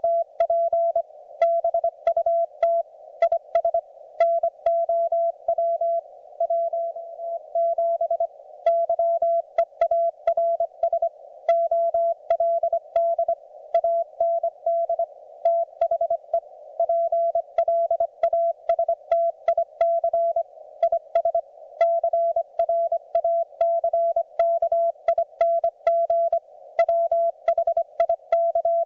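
Morse code (CW) from a YouKits HB-1B QRP transceiver: a single steady beep keyed on and off in dots and dashes at a steady conversational pace, over a narrow band of receiver hiss, with sharp clicks along with the keying.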